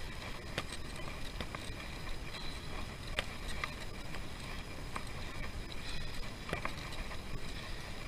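Bicycle riding along the road: steady wind and road noise with a few sharp clicks and rattles scattered through it.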